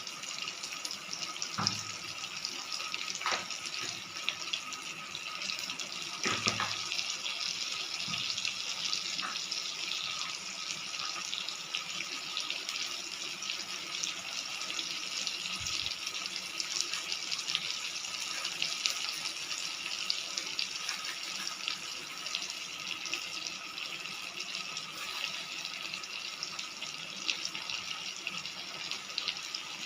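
Curry frying in mustard oil in a pan: a steady sizzle with a dense fine crackle, and a few brief knocks in the first few seconds.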